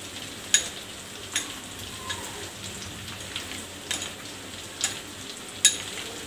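A spoon clinking against a small steel bowl about six times, irregularly, as bajra flour and water are stirred into a smooth paste, over the steady hiss of a chicken curry boiling in the pot.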